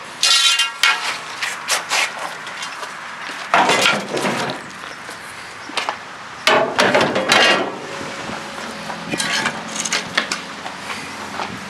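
Irregular knocks, clatters and scrapes of scrap pieces being handled, with the loudest clusters about 3.5 and 6.5 seconds in.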